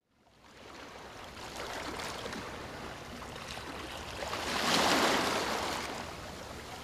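Rushing water fading in from silence, swelling to its loudest about two-thirds of the way through and then easing, with faint splashy ticks.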